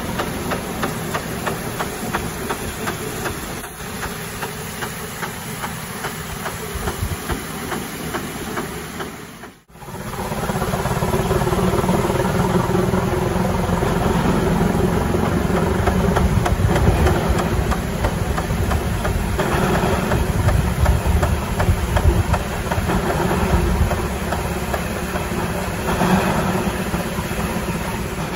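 Steam rotary snow plough R12 working through deep snow: fast, even steam exhaust beats with a steady steam hiss. About ten seconds in the sound breaks off for a moment, and it comes back louder.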